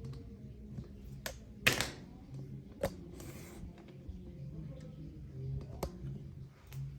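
Scattered clicks, knocks and a short scrape of tools and metal parts being handled on a gas furnace, over a faint low hum. The loudest scrape comes about a second and a half in.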